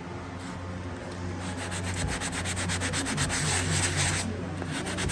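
Sandpaper on a hand sander rubbing over dried joint compound in a drywall corner, a rasping scrape made up of quick, closely spaced strokes. It grows stronger about a second and a half in and pauses briefly near the end.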